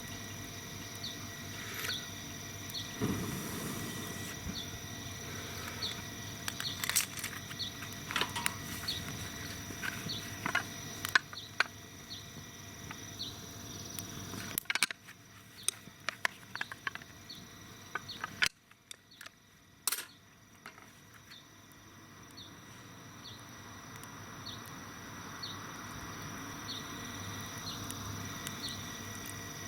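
Insects calling: a steady high-pitched buzz and a regular chirp a little more than once a second. Scattered sharp clicks and knocks come through the middle of it.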